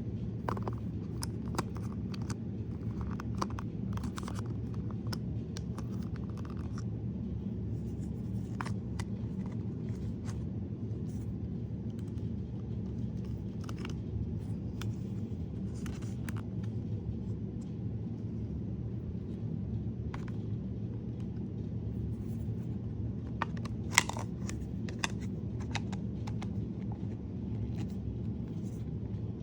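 Hands handling packaging while unboxing a figurine: scattered rustles, scrapes and light clicks over a steady low hum, with one sharp click a few seconds before the end.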